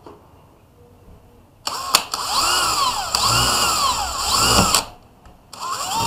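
Cordless drill boring into a wall, its motor running for about three seconds with its pitch rising and falling several times as the trigger is eased and squeezed, then a second shorter burst near the end.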